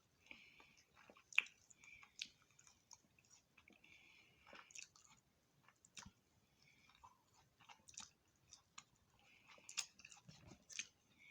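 Faint close-up chewing and biting of fried food, with irregular wet mouth clicks and soft crunches.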